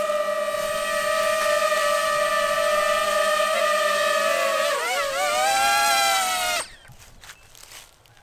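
DJI FPV drone hovering, its propellers giving a steady high whine. About five seconds in the pitch wavers and rises as the drone is caught by hand, and then the motors cut off suddenly, leaving faint handling clicks.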